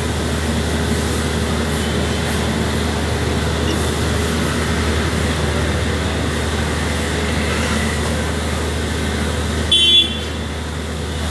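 Steady street traffic noise with a low engine rumble, and a short vehicle horn toot about ten seconds in.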